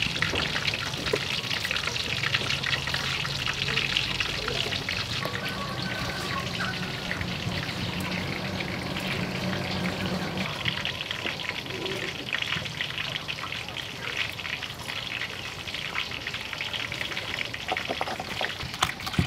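Steady, even crackling sizzle of food frying in oil, with a faint low hum during the first half.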